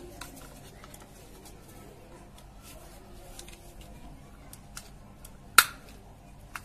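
Small plastic clicks and scrapes as a tester screwdriver pries at the plastic impeller cover of an air cooler's water pump, with one sharp, louder click about five and a half seconds in.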